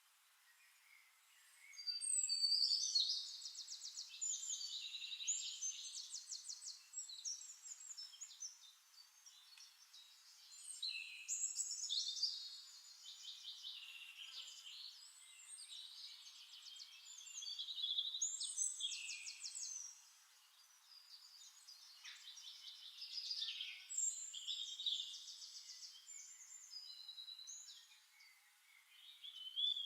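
Songbird singing long, elaborate phrases of rapid trills and warbles, a new phrase starting every several seconds with short pauses between.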